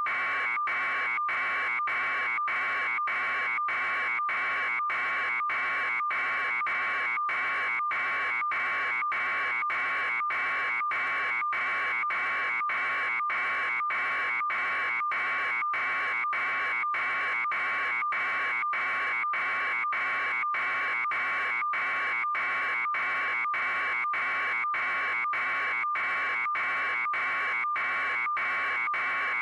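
Loud, harsh electronic buzzer tone repeating in even pulses about twice a second, each broken by a very short gap, unchanging throughout.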